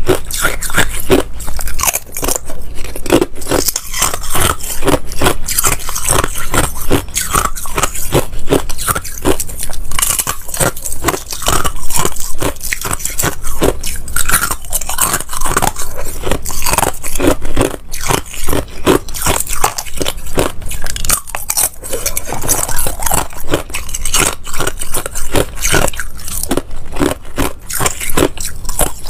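Thin shards of ice bitten and chewed: a dense, continuous run of crisp crunches and cracks.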